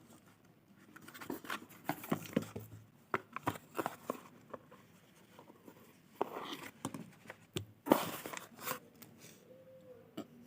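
Close-up handling of a headlamp and its packaging: bouts of plastic crinkling and rustling with scattered clicks and taps, the loudest knock about eight seconds in.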